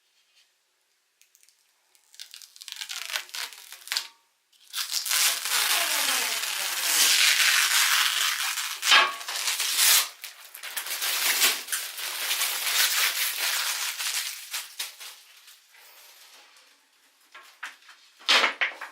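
Crinkling and tearing of something being handled, starting about two seconds in, heaviest in the middle and dying away near the end.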